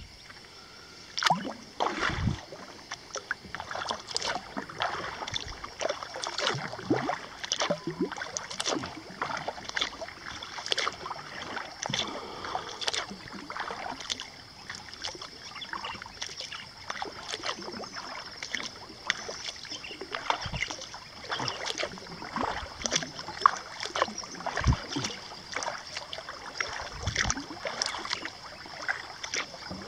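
Kayak paddle dipping and splashing in calm water, stroke after stroke, with water dripping off the blades, over a faint steady high-pitched background.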